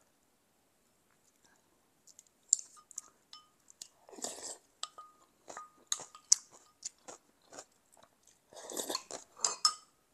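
Close-miked eating: chewing of chicken with many short ticks of wooden chopsticks against a ceramic bowl, starting about two seconds in after a near-silent start.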